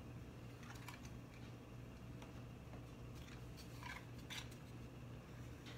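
Faint scattered clicks and rustles of a small plastic device and its packaging being handled and adjusted, over a low steady hum.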